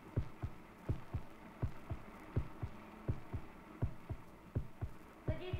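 Heartbeat thumping steadily at about 80 beats a minute, each beat a strong thump followed closely by a weaker one (lub-dub).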